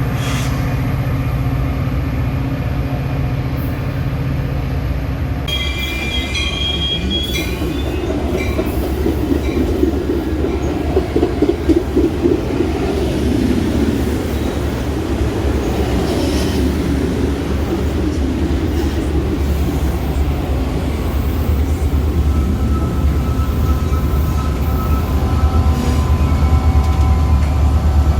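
Metra commuter train running with a steady low rumble. A short high-pitched squeal or tone comes about six seconds in, and a run of rhythmic wheel clacks comes around the eleventh second.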